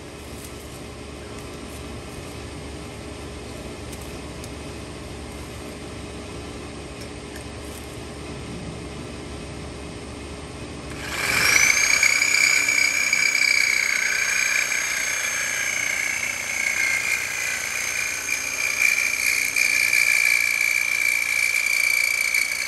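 Cordless reciprocating saw starting up about halfway through with a quickly rising whine, then running steadily under load as it cuts a steel bump-stop nub flush, and winding down near the end. Before it starts there is only a low steady background.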